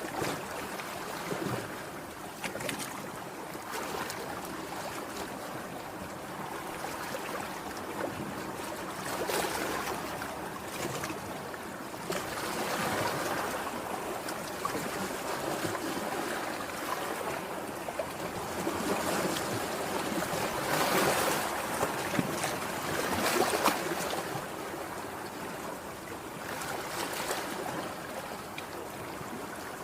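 Sea waves breaking and washing in, the noise swelling and easing every few seconds, loudest about two-thirds of the way through.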